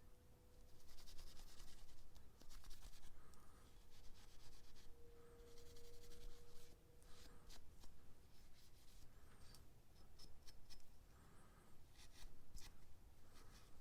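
Hand scrubbing of steel pliers with an abrasive, in several scratchy bursts of quick back-and-forth strokes.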